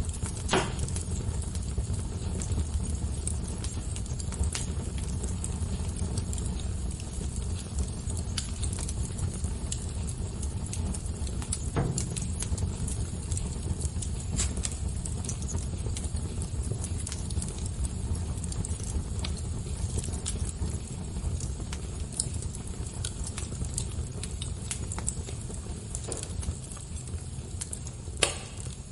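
Fire crackling: scattered small pops and clicks over a steady low rumble, with a few louder pops, one just after the start, one about twelve seconds in and one near the end.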